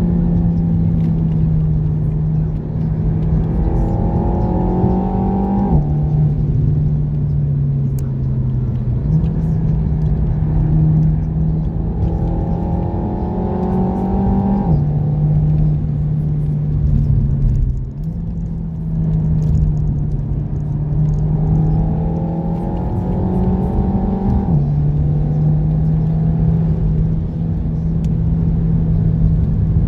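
Renault Mégane RS Trophy's turbocharged four-cylinder engine pulling hard on track, heard from inside the cabin over tyre and road noise. The engine note climbs slowly through each gear and drops sharply at each gear change, three times, about nine seconds apart.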